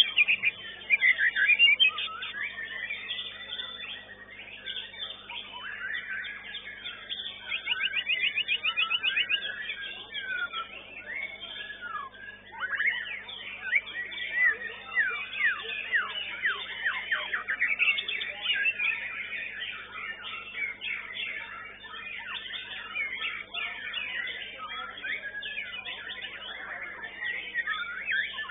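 White-rumped shamas (murai batu) singing in a caged songbird contest: a dense, overlapping run of loud whistles and trills. A fast rattling trill comes about eight seconds in, and a spell of quick downward-sweeping notes follows a few seconds later.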